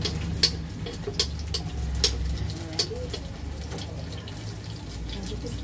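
Chopped onion and garlic sizzling in hot oil in an electric pan, with sharp clicks scattered through it, a couple of them standing out loudly.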